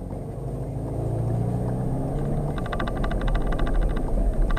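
2018 Skoda Octavia RS 4x4's 2.0 TDI diesel engine (184 PS) pulling the car away, heard from inside the cabin: its note rises steadily, then falls away about halfway through over a steady low road rumble. A fast, even ticking joins about two seconds in.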